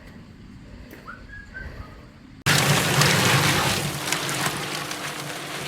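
Quiet outdoor background, then about two and a half seconds in the sound cuts abruptly to a cement mixer running, a steady motor hum under a dense churning noise as it mixes concrete.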